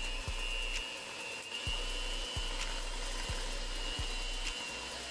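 Electric mixer running steadily with a high motor whine, beating softened butter for a cake batter.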